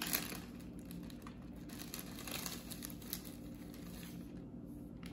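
A clear plastic zip-top bag being pulled open and handled, with faint crinkling and small crackles of the plastic.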